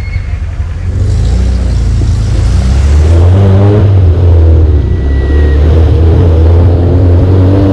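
Off-road jeep engine running hard under load, revving with a pitch that climbs near the end.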